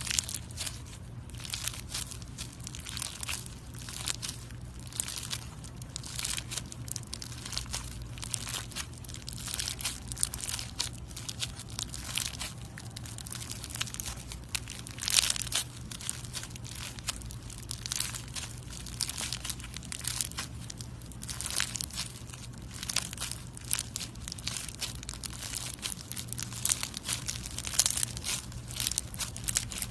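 Slime being squeezed and worked by hand, giving a steady run of sticky crackling clicks and crinkles with no pauses.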